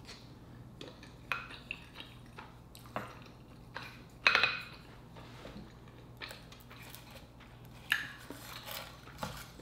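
A wooden spoon clicking and scraping against a plate and a sea urchin shell in scattered light knocks while food is scooped and pressed into rice. The loudest is a short scrape a little past four seconds in, with another sharp click near eight seconds.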